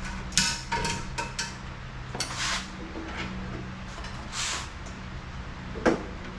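Metal clanks and clinks of tools and parts being handled, several in quick succession about half a second in and one more near the end, with two short scraping rushes between them over a steady low hum.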